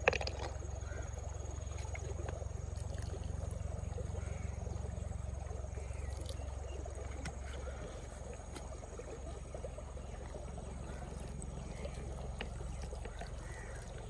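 Steady outdoor background noise: a low rumble with a light hiss over it, and a few faint ticks.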